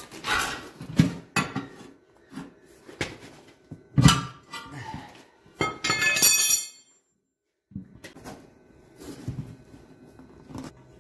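Knocks, thumps and clatter of a tractor front tire on its steel rim being rolled, set down and handled on a concrete floor, with a louder rattle lasting about a second near the middle. The sound cuts out completely for about a second just after it, then quieter handling knocks go on.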